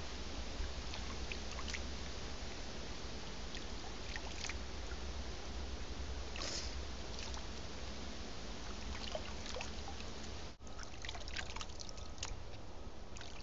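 Water scooped by hand from a shallow pool and dribbled into the top of a homemade bottle filter: light splashes and trickles over a steady hiss.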